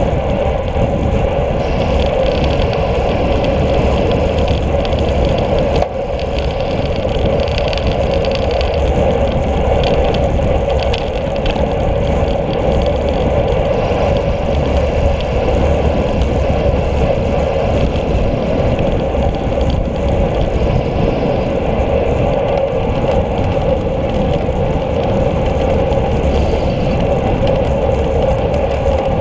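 Steady rush of wind over a road cyclist's action-camera microphone while riding at speed, with road noise beneath.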